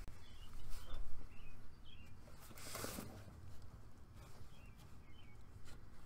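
Small birds chirping faintly and intermittently in the background over a steady low outdoor hum, with a brief rustle of handling noise a little before the middle and a few light clicks.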